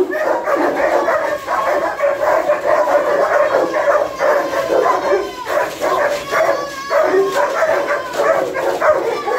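Several kenneled guard dogs barking at once in a continuous, overlapping din, with high whines and yips mixed in.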